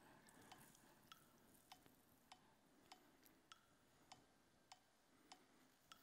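Smartphone metronome app ticking faintly and steadily, about 100 beats a minute. It is set down on the court as an acoustic target that a blind player aims his serve at.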